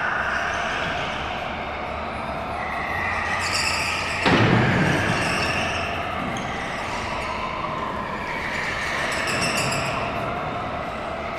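Go-karts running laps on an indoor track, the pitch of their motors rising and falling as they brake and accelerate through the turns. A single loud thud about four seconds in stands out above the running karts.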